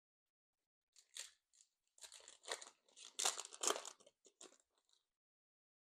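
Foil booster pack wrapper torn open and crinkling, in a run of short irregular crackles over about four seconds.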